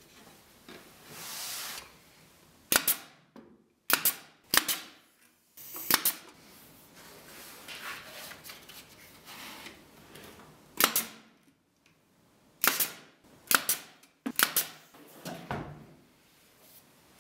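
Drawers and doors of a white oak cabinet being slid open and pushed shut by hand, with a soft sliding rush about a second in and then about ten sharp clacks as they close against the case, several in quick succession near the end.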